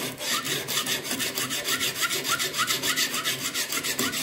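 Coarse 100/200-grit CBN lapping plate rasping along a knife blade in quick, short back-and-forth strokes, taking off the machine-grinding marks.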